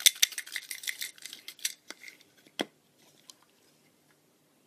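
Folded paper slips shaken in a small box, rattling and rustling in a rapid run of light clicks for about two seconds, then one sharper click a little later.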